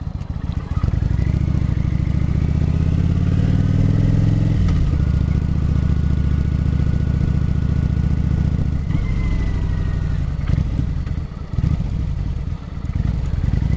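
Cruiser motorcycle engine heard from the bike as it rides: it rises in pitch under throttle, drops suddenly about four and a half seconds in as the rider shifts up, holds steady, then falls away about nine seconds in as the throttle is closed and the bike slows.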